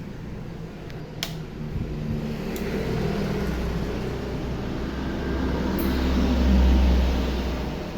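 Daiden MIG welder's wire-feed motor running after a click about a second in, a low hum that builds, is loudest near the end, then drops off: the feed motor turning again after its IC and capacitor were replaced.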